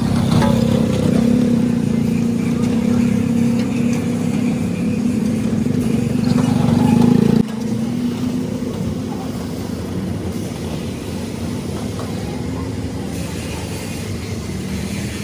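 A machine running steadily with a low drone, dropping abruptly in level about seven and a half seconds in.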